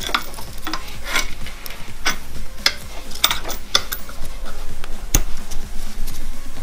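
Irregular metallic clicks, taps and small scrapes as a throttle cable's threaded end and its nuts are worked into the cable bracket on an aluminium intake manifold, one sharper knock about five seconds in.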